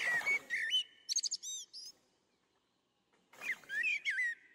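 Birds chirping in short, quick whistled calls. A burst of calls comes in the first two seconds, a brief lull follows, and more calls come near the end. A short rustling splash sounds at the start.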